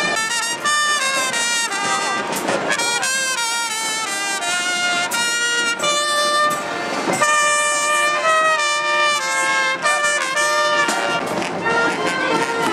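Street brass band playing a tune in a parade, trumpets and trombones sounding several notes together as the melody moves along.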